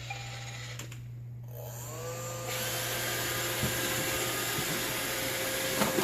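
iRobot Roomba 655 robot vacuum starting a cleaning cycle. There is a short beep at the start. About two seconds in, its motors spin up with a rising whine, then it runs with a steady whine over a whooshing hiss of the vacuum and brushes.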